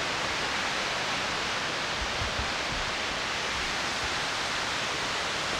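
Waterfall and cascading brook water rushing steadily, a constant even hiss.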